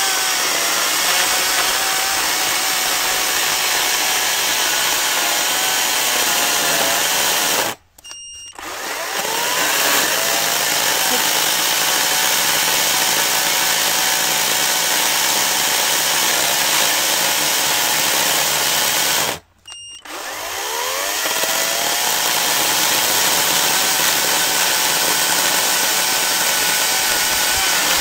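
Parkside PKSA 40-Li A1 dual-battery cordless electric chainsaw cutting through a log section with a steady motor whine. Twice, about 8 and 19 seconds in, it stops for a moment and then spins back up with a rising whine.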